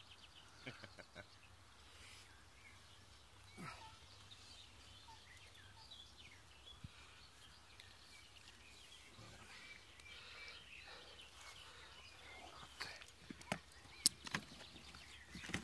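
Quiet outdoor ambience with faint, scattered bird calls, and a few sharp clicks and knocks near the end.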